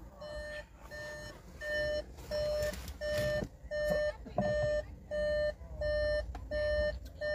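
A car's warning chime beeping over and over inside the cabin: short, identical, mid-pitched beeps, about three every two seconds, over a low rumble.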